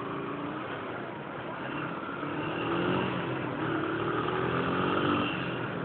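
Yamaha Factor 125's single-cylinder four-stroke engine running under way in traffic. Its pitch rises, drops back a little past halfway, then rises again as the bike accelerates.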